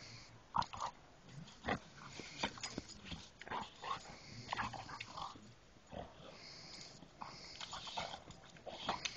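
Two dogs play-fighting, making short, irregular vocal noises as they wrestle.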